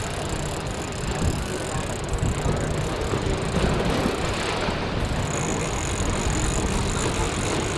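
Boat's outboard engines running steadily under way, mixed with wind and water rush.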